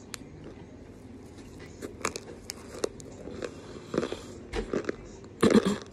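Biting and chewing a chunk of chalk: a run of sharp, dry crunches that come thicker and louder as it goes, the loudest cluster near the end.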